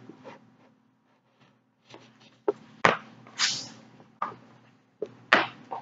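Feet landing on the floor during power skips: about half a dozen sharp thumps, starting about two and a half seconds in and coming roughly every half second, with a brief scuff between them.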